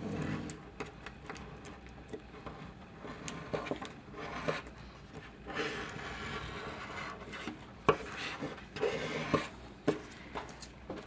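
Bone folder rubbed along a fold in a clear plastic page protector to firm up the crease: a series of uneven scraping strokes with small clicks and taps between them.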